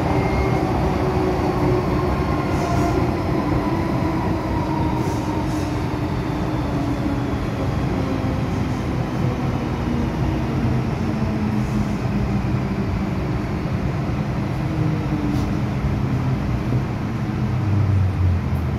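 MTR M-Train heard from inside the car as it slows into a station: a rolling rumble of wheels on rail under a motor whine that falls slowly in pitch as the train brakes. A deeper hum swells near the end as it comes almost to a stop.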